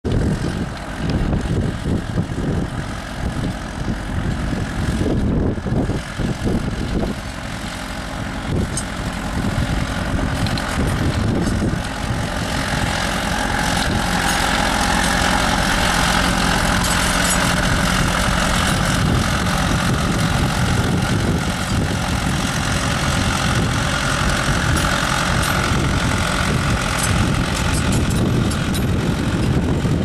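John Deere 2850 tractor's diesel engine working under load as it pulls a two-furrow reversible plough through the soil. The engine sound grows louder and steadier about twelve seconds in.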